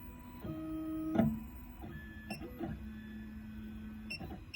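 Miracle A9 key cutting machine moving its carriage on stepper motors during an automatic calibration measurement. It makes a steady motor whine that holds one pitch and then drops to a lower one for a longer run, with a few short clicks along the way.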